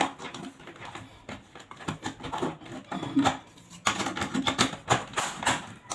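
Irregular clicks and knocks of small plastic and metal parts being handled as a two-hole power outlet is fitted together, busiest in the second half.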